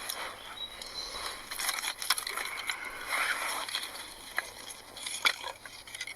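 Dry twigs and kindling snapping and crackling as a campfire is being lit, with irregular sharp snaps, the loudest about two seconds and five seconds in.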